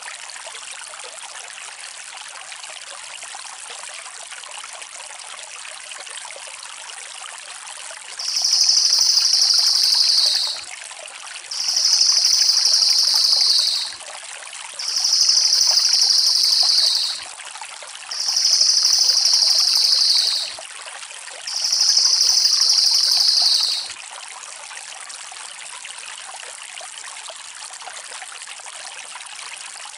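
Crested jay (cililin) giving five loud, long rolling calls, each about two seconds long and dipping slightly in pitch at its end, over a steady background of running water.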